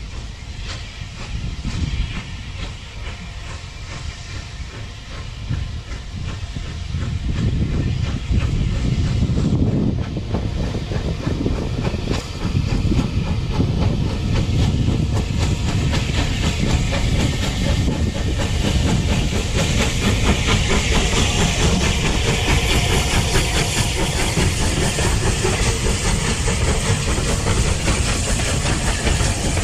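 Steam locomotive passing with a train of carriages: the engine's steam hiss and exhaust grow louder from about seven seconds in. The coaches' wheels then clatter steadily over the rail joints.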